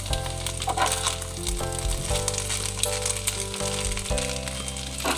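Butter garlic spinach pasta sizzling in a pan as it is tossed, with a hiss and scattered clicks and scrapes from the utensil. Background music with held low notes plays underneath.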